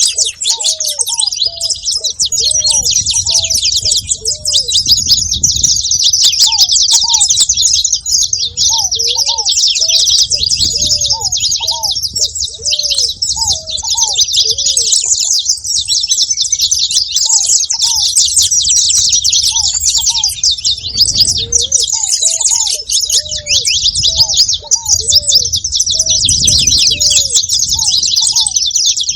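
Saffron finch (canário-da-terra) singing nonstop: a dense, unbroken stream of rapid high chirps and trills. Runs of short, lower arched call notes from another bird come in every few seconds.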